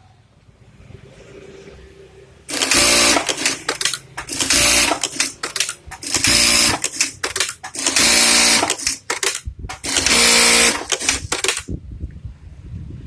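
Juki DDL-8100B-7 single-needle lockstitch industrial sewing machine running in several loud bursts of a second or so each, starting and stopping repeatedly.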